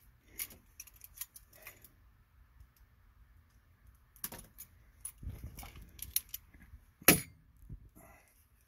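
Scattered small clicks and rustles of hands working a network cable with a hand cutting and stripping tool, with one sharp snap about seven seconds in.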